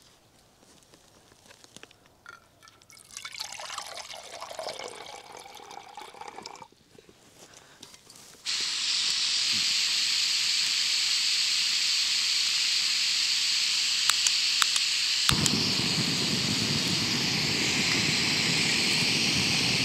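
Jetboil gas stove on a Primus canister: after some soft handling noise, the gas valve opens with a sudden steady hiss, a few sharp igniter clicks follow, and the burner lights with a low rushing roar under the hiss that burns steadily on.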